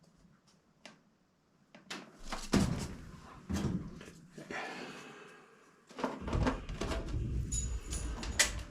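A series of irregular knocks and clunks from things being handled, with low rumbling spells between them.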